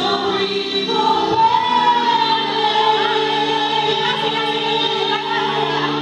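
A woman singing live into a microphone over a backing track played through a PA speaker. She holds one long high note from about a second in.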